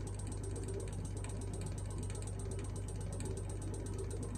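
A vehicle cab creaking and clicking in rapid, dense ticks over a steady low engine hum.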